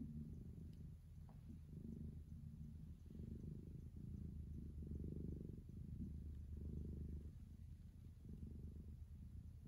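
Gray tabby cat purring steadily, the purr swelling and easing about every second and a half as it breathes in and out.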